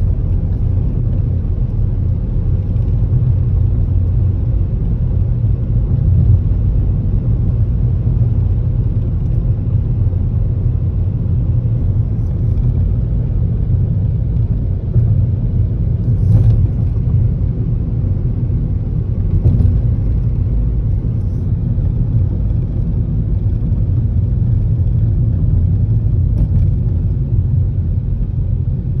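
Steady low rumble of a car driving on a concrete road, heard from inside the cabin, with a few faint knocks in the second half.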